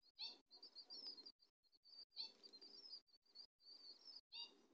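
Birds chirping faintly: a rapid run of short high chirps, with a louder call about every two seconds.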